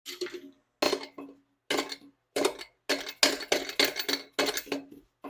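Ratchet wrench clicking in repeated strokes while working on a bolt: short bursts of metal clicks with a light ringing note, coming faster and closer together after about three seconds.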